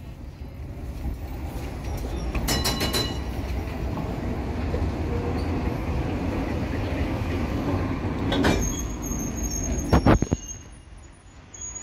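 FVV articulated tram rolling slowly past with a steady low running noise of wheels and running gear. A few sharp clacks come as the wheels cross rail joints, and a thin high squeal starts about two-thirds through. The noise fades as the tram moves away near the end.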